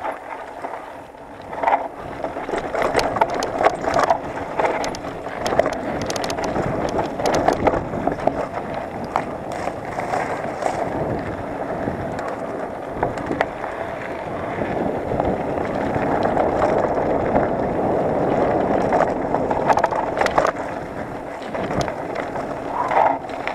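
Mountain bike descending a rough dirt singletrack: a steady rush of tyres over dirt and loose stones, with frequent sharp rattles and knocks as the bike hits bumps.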